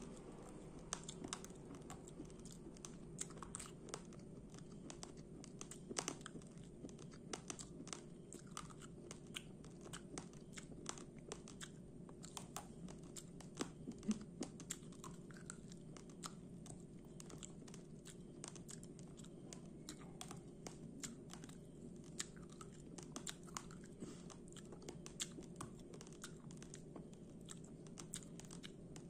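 Close-up chewing of raw, uncooked rice grains: many small, sharp, irregular crunches, several a second.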